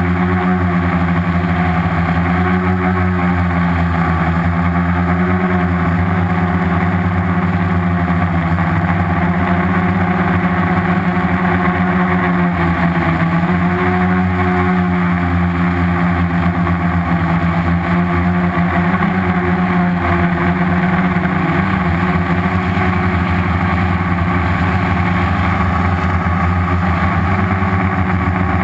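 Homemade quadcopter's four Turnigy 2217 1050 kV brushless outrunner motors spinning 10x4.5 slow-fly propellers, heard from the GoPro mounted on the craft: a loud, steady buzzing hum whose pitch wavers slightly as the motor speeds are adjusted in flight.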